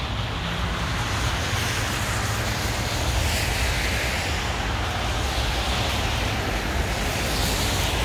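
Steady city traffic noise on a snow-covered avenue: a low rumble of passing cars with the hiss of their tyres on the snowy road.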